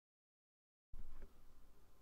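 Silent at first, then about a second in a brief low thump followed by a faint, steady ringing from a large 32 cm five-metal singing bowl touched with a felt-covered mallet.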